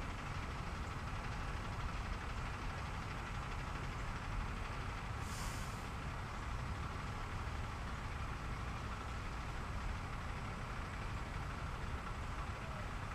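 Steady low outdoor background rumble with no clear events, with a brief hiss about five seconds in.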